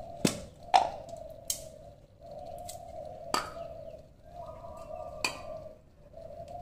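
A dove cooing in repeated phrases of about a second each, steady in pitch. Over it come five sharp clicks and clinks of hard parts and tools being handled, the loudest under a second in.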